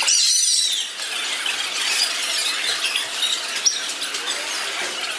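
Ambient sound of a busy hall played back at timelapse speed, pitched up into a dense, high-pitched chatter of squeaks and chirps, with a few arching chirps at the start.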